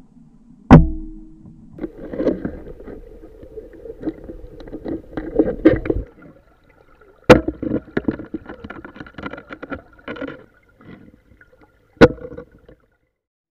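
Underwater recording of a rubber-band speargun being fired: three sharp cracks, about a second in, about seven seconds in and about twelve seconds in. Between the shots comes muffled underwater knocking and clattering.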